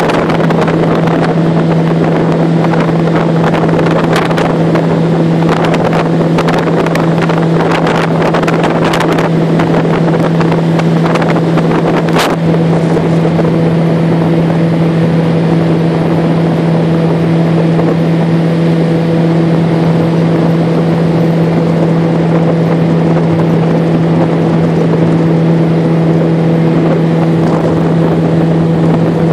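Jet boat engine running at a steady cruising speed: a constant droning hum over the rush of water, with scattered crackles in the first half and a sharp click near the middle.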